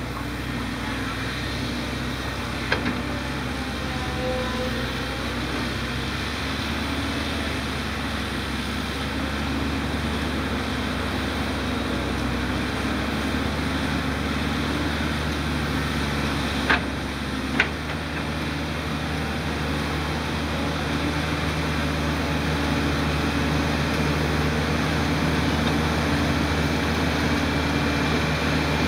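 Diesel engines of a Volvo EC210 excavator and a Komatsu D30 crawler dozer running together under load, getting a little louder near the end as the dozer comes close. A few sharp knocks stand out: one early, and two close together about two-thirds of the way through.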